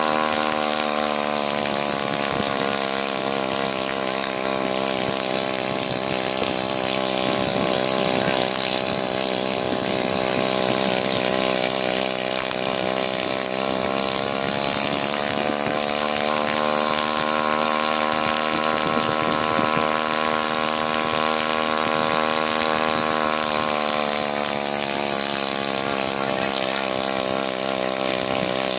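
Engine of a homebuilt ultralight helicopter running steadily during a main rotor ground test; its speed drops a second or two in, picks up again around the middle, and drops back near the end.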